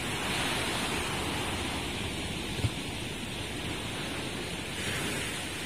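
Ocean surf breaking and washing onto the shore: a steady rush that swells near the start and again about five seconds in, over a rough low rumble of wind on the microphone. There is one short low bump about two and a half seconds in.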